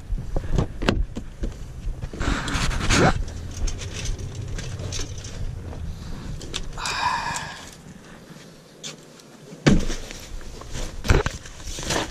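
Wind buffeting the microphone and clothing rustling, then, after a brief lull, a sharp knock and clicks as a car door is worked and bags are handled on the back seat.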